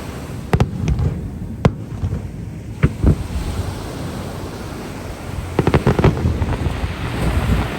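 Japanese aerial fireworks going off: sharp single bangs with rumbling echoes, then a quick cluster of bangs about two-thirds of the way through, over a steady low rumble.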